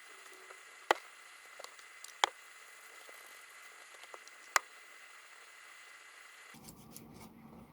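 Handling sounds at a workbench: three sharp clicks, about a second, two and four and a half seconds in, with a few fainter ticks between them over low hiss.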